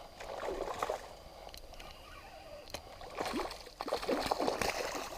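A hooked pike splashing and thrashing at the water's surface as it is played in, in irregular bursts about half a second in and again for the last two seconds.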